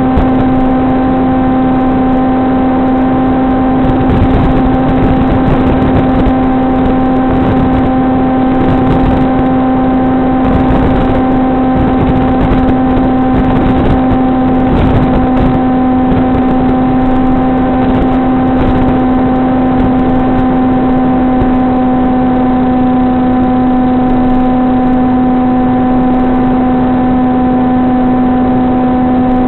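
Onboard audio of an electric FPV flying wing in flight: a steady, unchanging hum with several overtones under a rush of wind noise that swells in gusts in the first half.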